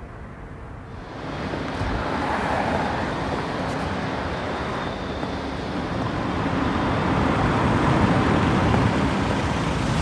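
City street traffic noise, coming in about a second in and slowly growing louder as a car approaches and draws up.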